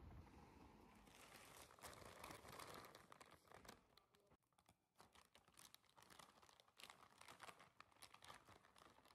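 Faint crinkling of a plastic bag of frozen steamed bread rolls being handled. It comes as quick, irregular crackles starting about a second in.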